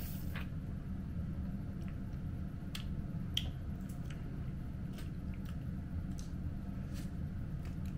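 Someone chewing and eating, with scattered small wet clicks and squishy mouth sounds over a steady low hum.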